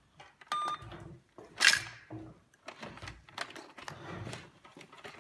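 Plastic toy cash register being keyed by a child: clicking buttons and a beep about half a second in. A short, loud, hissy burst about a second and a half in is the loudest sound.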